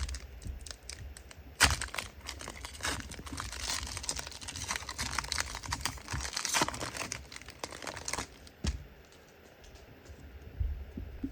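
A trading-card pack wrapper being torn open and crinkled: dense crackling from about two seconds in until about eight seconds, then one sharp click and quieter handling.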